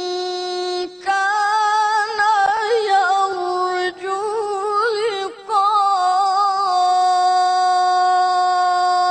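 A boy's voice reciting the Qur'an in melodic tilawah style through a microphone, drawing out long held notes with wavering ornaments. It breaks briefly about a second in and twice around the middle, then holds one long steady note through the second half.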